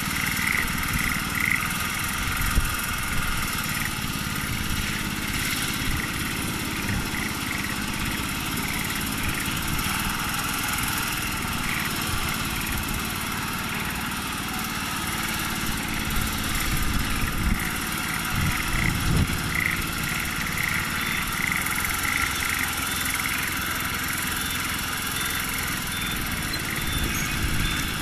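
Rice transplanter's small engine running steadily while the machine plants seedlings, with short high chirps repeating on and off over it.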